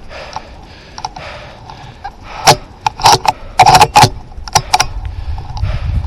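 A quick run of sharp clicks and knocks close to the microphone, bunched between about two and a half and five seconds in.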